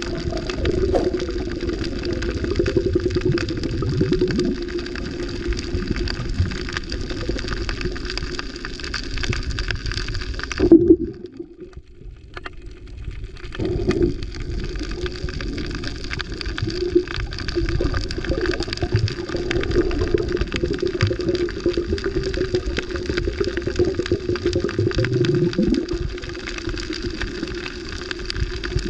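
Underwater sound picked up by a camera: muffled water noise with a steady low hum running through it. A sharp knock about eleven seconds in is followed by a couple of seconds where the sound nearly drops out.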